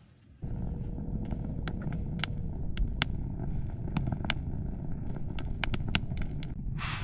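Campfire burning with a low rumble and many sharp crackling pops, starting abruptly about half a second in.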